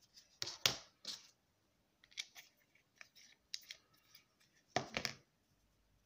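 Plastic clicking and rattling as 3D-printed PLA paddle wheel parts are handled and set down on a tabletop, with two louder clattering bursts, one about half a second in and one about five seconds in.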